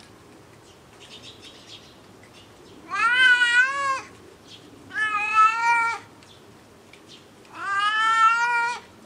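A cat meowing three times, long drawn-out calls of about a second each, a second or two apart.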